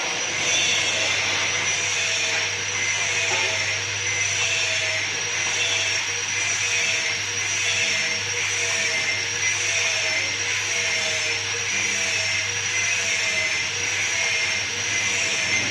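A machine's motor running steadily without a break, with a constant high-pitched whine over a low hum.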